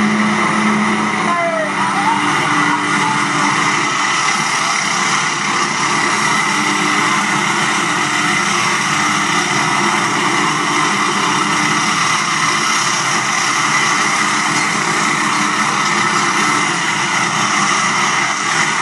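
Steady, loud noise of a de Havilland Twin Otter's turboprop engines and rushing air inside the jump plane's cabin, played back through a TV.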